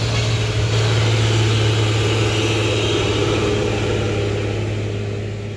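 Mitsubishi Fuso 6x4 cargo truck's diesel engine running with a steady low drone as the truck drives slowly past close by, getting a little quieter near the end.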